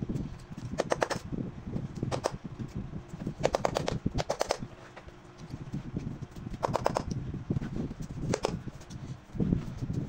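Scissors snipping through leather shoe lining, trimming the excess inside a lasted upper: short runs of quick crisp snips with pauses between, over a steady low background hum.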